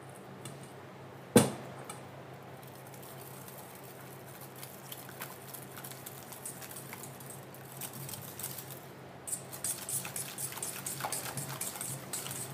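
A wire whisk clicking and scraping against a stainless steel mixing bowl while whisking Caesar dressing. It is quiet at first, then turns into a fast, steady rattle of clicks about nine seconds in. A single sharp knock about a second in is the loudest sound.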